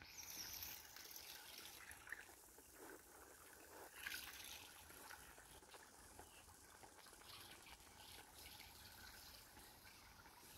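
Faint trickling water from a small waterfall, barely above near silence, with a few soft ticks.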